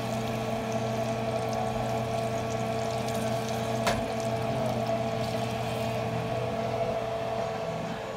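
Hot oil sizzling steadily in a frying pan around a Takis-coated mozzarella stick as it fries, over a steady hum. One sharp click about four seconds in.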